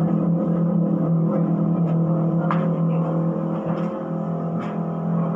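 Stainless-steel deep fryer running with a steady low mechanical hum, with a few faint clicks from the hot tank.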